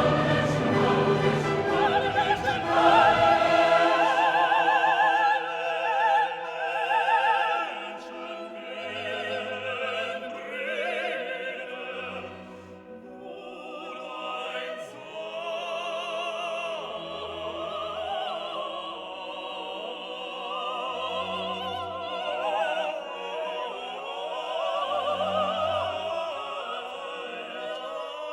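Background music: classical operatic singing with a strong vibrato over an orchestra.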